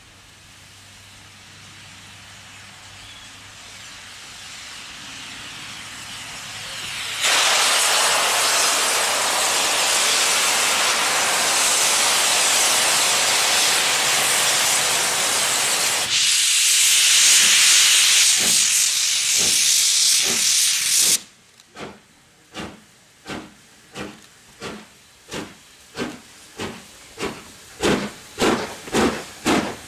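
LMS Black 5 two-cylinder 4-6-0 steam locomotive starting a passenger train: a long, loud hiss of escaping steam that cuts off abruptly, then the chimney exhaust beats, slow at first and quickening to about two a second as the engine gathers speed.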